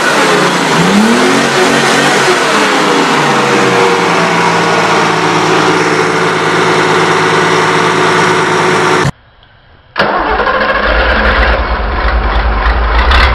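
Turbocharged 5.2-litre V6 engine revving a few times, its pitch rising and falling, then settling to a steady idle. After a brief cut, about ten seconds in, a Deutz TCD 16.0 V8 diesel starts and runs with a heavy low rumble.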